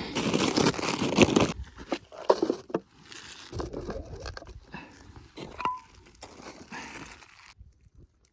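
Plastic packaging crinkling and rustling in the hands, with short tearing sounds, loudest in the first two seconds; it cuts off suddenly near the end.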